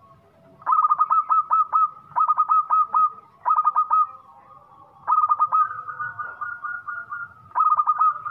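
Zebra dove (perkutut) cooing loudly in five quick runs of rapid staccato notes, each run lasting about half a second to a second.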